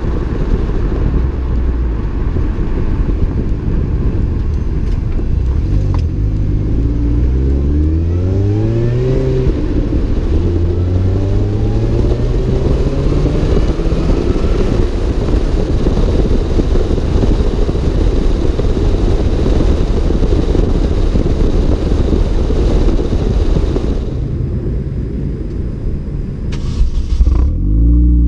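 Supercharged four-cylinder engine of a 2005 Mini Cooper S (R53), fitted with an Alta intake, Alta cat-back exhaust and a 17% reduction supercharger pulley, driving under way over heavy wind and road noise. Its pitch rises, drops and rises again, as with a gear change under acceleration. Near the end the sound cuts and the engine is briefly revved.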